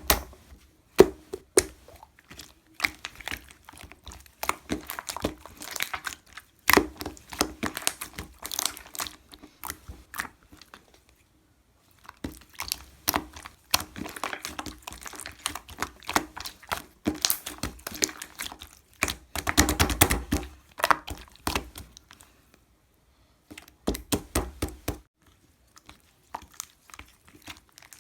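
Slime being squished and kneaded by hand: clusters of sticky crackling and popping clicks, with a few short pauses.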